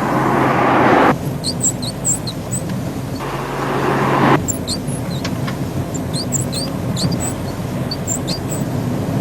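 Repeated short, high-pitched squeaks, a few a second at irregular spacing, over the steady low hum of a running Volkswagen car. Two spells of louder rushing noise come at the start and again about three to four seconds in.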